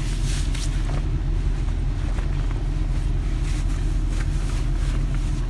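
2017 Ford F-350 pickup idling, a steady low rumble heard from inside the cab, with light taps and rustles of the phone being handled.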